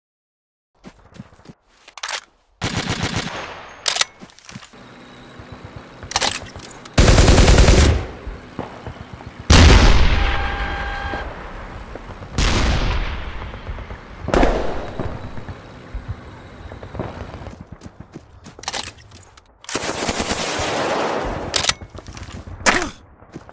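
Added gunfire sound effects: a short burst of rapid machine-gun fire a few seconds in, then several single heavy blasts, each with a long fading tail, and another long rapid-fire burst near the end.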